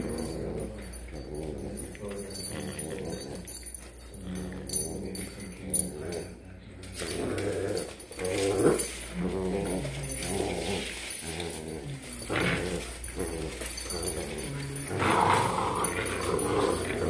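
Pit bull puppies growling again and again in play as they tug on a rope toy.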